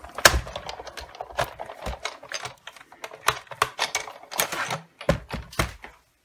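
Big Shot manual die-cutting machine being hand-cranked, a cutting-plate sandwich with a cardboard shim for extra pressure feeding through its rollers, then the plates being handled. Irregular clicks and clunks, the loudest near the start and in the last two seconds.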